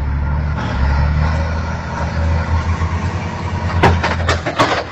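Low, steady drone of heavy diesel engines running. Near the end come three sharp cracks as the truck collides with the motor grader.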